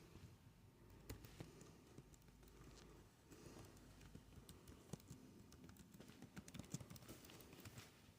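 Faint typing on a computer keyboard: irregular clicks of keys, busiest in the second half.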